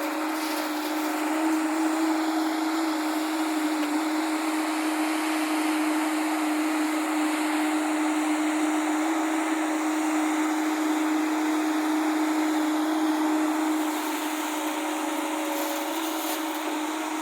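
Heavy diesel engine of the excavator or tipper truck running steadily, a constant hum that holds one pitch throughout.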